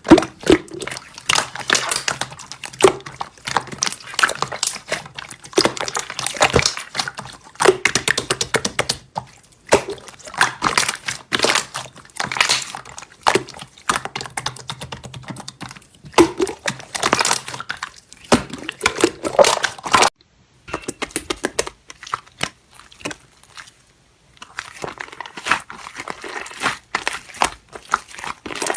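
Slime being pressed and squished by hand, giving dense, irregular crackling and clicking pops. The sound breaks off briefly about twenty seconds in.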